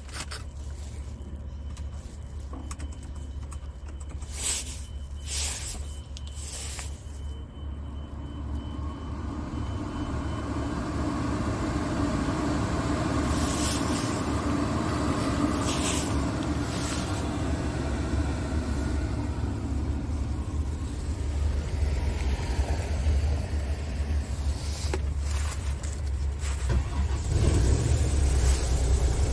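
Scania S tractor unit's diesel engine idling at about 600 rpm, heard from inside the cab as a steady low rumble, with several short clicks of console switches over it.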